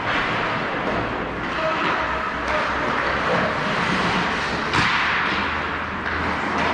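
Ice hockey play on a rink: a steady scraping hiss of skates on the ice, with a couple of sharp hits from sticks, puck or boards, one about two and a half seconds in and a louder one near five seconds.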